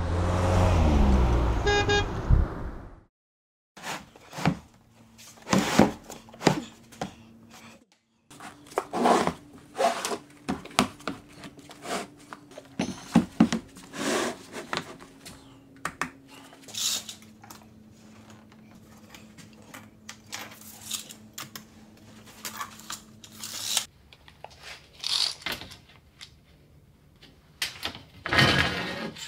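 A motorhome drives past, its engine note swelling and then falling in pitch, and cuts off after about three seconds. Then come scattered knocks and clunks as heavy lithium batteries are shifted and set down on a wooden workbench, and near the end a tape measure is run along a length of aluminium angle.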